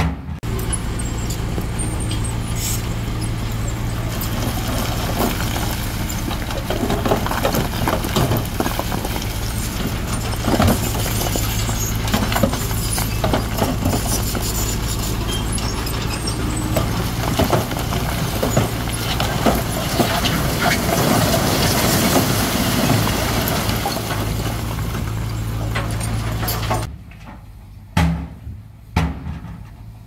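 Heavy diesel earthmoving machinery running under load: a steady low engine drone with many short metallic knocks over it. The sound cuts off abruptly near the end, leaving only a few quieter knocks.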